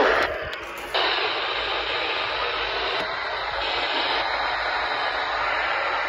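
Weather alert radio hissing with steady static while its channel is being changed, after a brief burst and a few sharp clicks in the first second.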